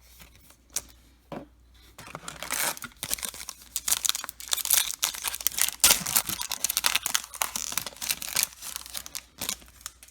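A baseball card pack wrapper being torn open and crinkled, with a few light handling clicks at first and then about seven seconds of dense crackling and rustling.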